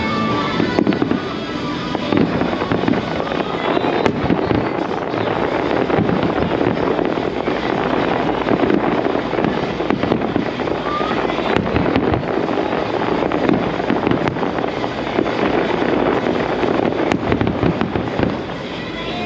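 Fireworks going off in a dense, continuous barrage of bangs and crackles, with music playing along.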